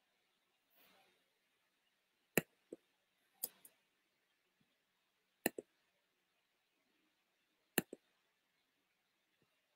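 Four pairs of sharp clicks, each like a button pressed and released, a second or two apart, with a faint rustle about a second in.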